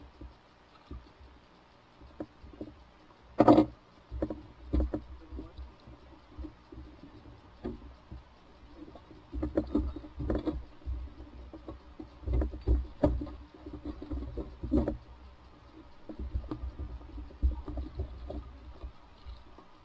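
Irregular knocks, taps and rustling from fishing gear and a caught fish being handled aboard an inflatable boat, with the sharpest knock about three and a half seconds in and a low rumble underneath.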